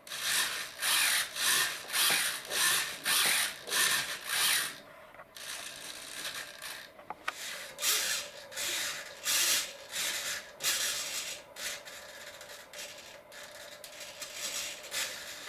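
Small radio-control aileron servo whirring as it drives a balsa wing's aileron up and down through its linkage, in short repeated strokes about two a second. A second run of strokes after a brief lull is fainter, with a faint steady hum underneath.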